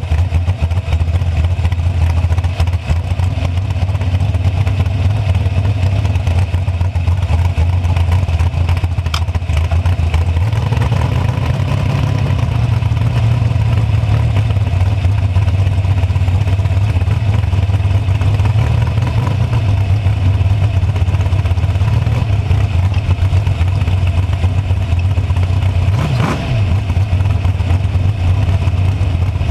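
Super Pro dragster's engine running at low speed with a steady, deep note as the car rolls along, its pitch stepping up slightly about ten seconds in. A brief sweeping sound cuts through about twenty-six seconds in.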